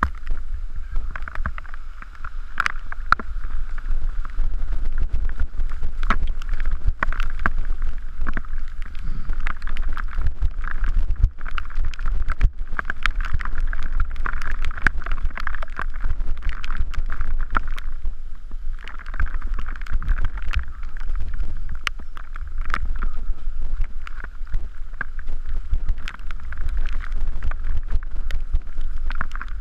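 Mountain bike descending a wet dirt trail: tyres on wet dirt and a steady wind rumble on the microphone, with frequent clicks and rattles as the bike jolts over rocks and roots.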